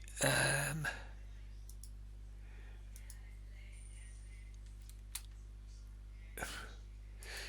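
A few scattered computer mouse clicks over a steady low electrical hum, with a brief breathy vocal sound just after the start.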